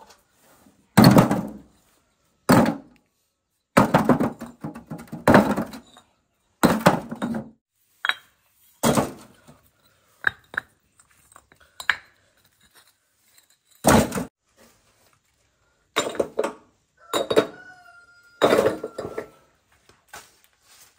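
About a dozen loud, irregular thuds and clatters of hard objects being knocked or set down, like pots and utensils being handled. A short pitched squeak comes near the end.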